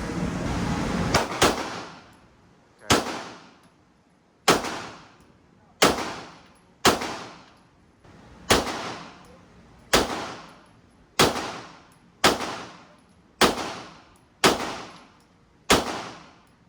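A string of about a dozen gunshots fired at a steady pace of roughly one a second, each sharp crack followed by a short fading echo; the first two come close together about a second in.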